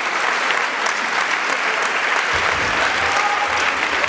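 Audience applauding steadily, a dense patter of many hands clapping, with a low rumble joining about halfway through.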